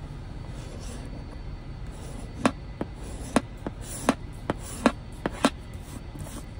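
A coin scraping the coating off a scratch-off lottery ticket: a string of short, sharp scratch strokes starting about two and a half seconds in, after a quieter stretch.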